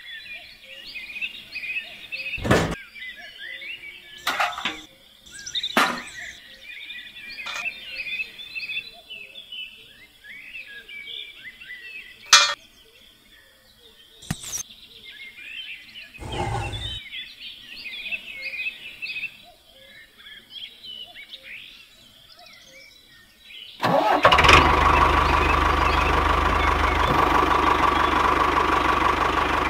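Birds chirping steadily, with a few sharp knocks. About 24 s in, a diesel engine idling sound starts suddenly and runs on steadily and loudly, with a constant hum over a low rumble.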